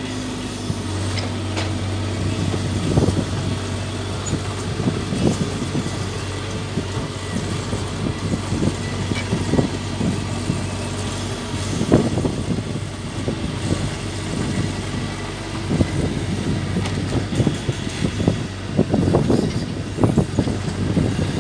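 Caterpillar mini excavator's diesel engine running under load as the machine climbs on its tracks up a steep dirt ramp out of a deep pit. A steady low engine hum runs underneath, with repeated irregular bursts of louder noise as it works its way up.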